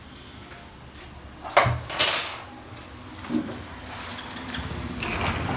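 Framed sliding glass door being slid along its track: a sharp knock, then a short rattling scrape about two seconds in, and a smaller knock a second later.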